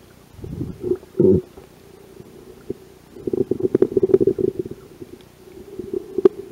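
Muffled underwater noise from a camera in the water: low rumbles and a couple of heavy knocks in the first second and a half, then a stretch of rapid crackling clicks about three seconds in, and one sharp click near the end.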